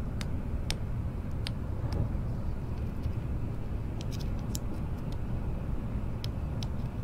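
Interior running noise of an N700A Tokaido Shinkansen train at speed: a steady low rumble, with faint sharp ticks from the cabin scattered irregularly through it.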